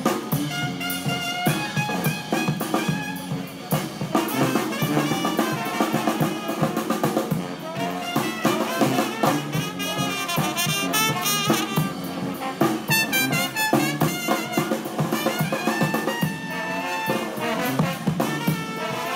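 Brass band playing up-tempo jazz, with trumpet and trombone lines over a drum kit.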